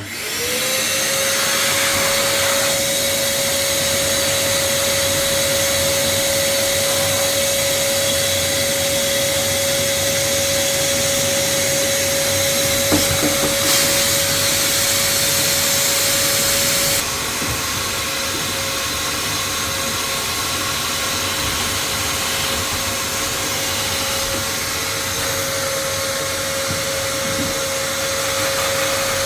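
Wet vacuum switched on: the motor spins up with a rising whine, then runs steadily while sucking water out of a washing machine's drain hose. It drops slightly in loudness about seventeen seconds in.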